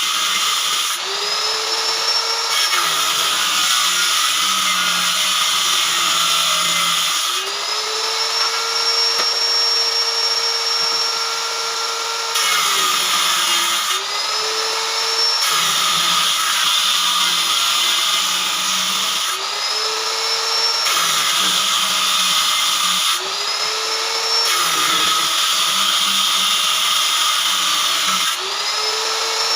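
Electric woodworking power tool cutting wood in repeated passes. The motor's whine drops and turns noisy while it is under load, then rises back to a higher free-running pitch between cuts, about six times over.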